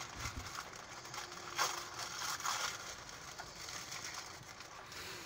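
Packaging rustling and crinkling as it is handled and unwrapped, in short irregular crackles that are loudest about a second and a half in and again around two and a half seconds.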